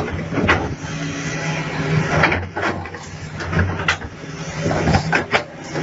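Tracked excavator's diesel engine running steadily, with several sharp metallic clanks and scraping noises as it works the dirt.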